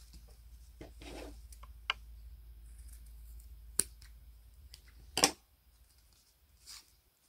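Small clicks and light knocks of a brass kerosene-lamp burner and its flat cotton wick being handled, with one louder knock about five seconds in. A faint low hum underneath stops just after that knock.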